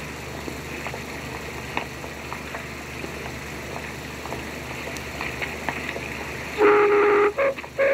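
Worn 16mm optical film soundtrack: a steady hiss with faint scattered background sounds, then about six and a half seconds in, music starts loudly, a melody of held notes.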